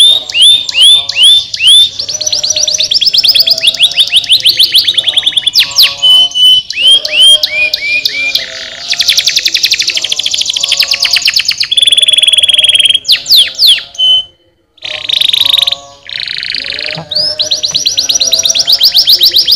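Domestic canary singing a long song of fast trills and runs of repeated down-slurred notes, with short held whistles, broken by a brief pause about two-thirds of the way in.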